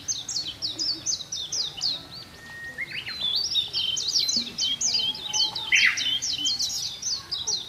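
Birds chirping: a quick run of short, high chirps, each sliding downward. It thins out briefly about two seconds in, then picks up again.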